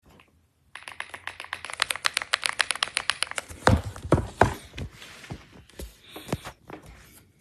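Typing on an AULA S98 Pro mechanical keyboard: a fast run of key clicks, about ten a second. About halfway through come a few louder, deeper key strokes, then scattered presses.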